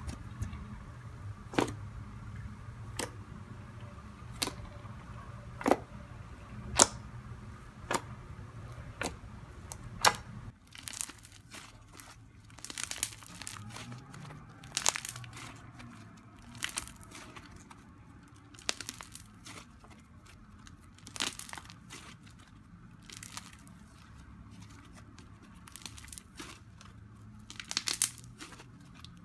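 Fluffy slime made from glue and face cream being pressed and squeezed by hand, giving sharp popping clicks about once a second. About ten seconds in this gives way to denser crackling as the slime is stretched and folded between the fingers.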